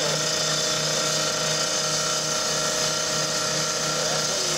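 Power saw running steadily as it cuts into the steel body of a garbage truck, a constant high grinding hiss over an even machine tone.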